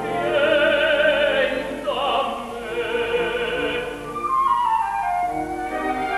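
Operatic tenor singing with a wide vibrato over a small orchestra, then stopping while the orchestra plays on, a falling melodic line coming through about four seconds in.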